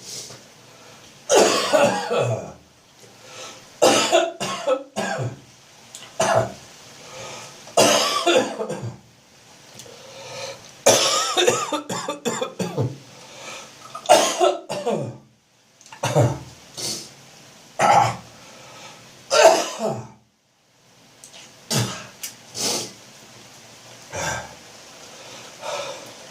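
A man's chesty, phlegmy cough: repeated harsh coughs and throat clearing in short bouts with brief pauses, from phlegm building up on the chest.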